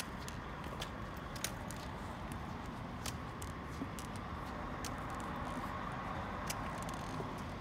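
Sharp, irregular taps of metal forearm crutch tips and a single high heel striking stone paving during a crutch gait, over a steady background hum.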